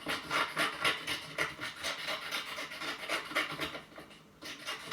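Scissors cutting paper: a quick run of repeated snips with the scrape of paper, pausing briefly about four seconds in.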